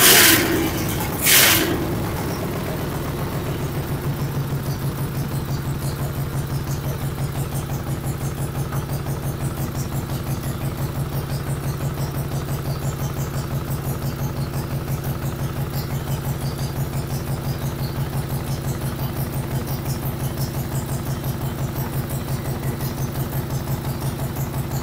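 Modified racing lawn mower's small gasoline engine revving briefly twice in the first two seconds, then settling into a steady, evenly pulsing idle.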